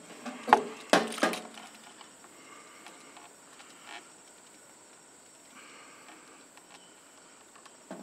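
A screwdriver and a GFCI receptacle being handled while wires are fitted to its terminal screws. There are a few sharp clicks and knocks in the first second and a half, then faint scraping and handling noise.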